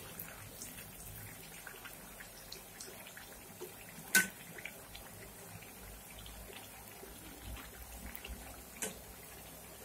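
Moong dal vadas deep-frying in hot oil in a kadhai: a faint, steady sizzle with scattered small crackles. There is one sharp click about four seconds in and a lighter one near the end.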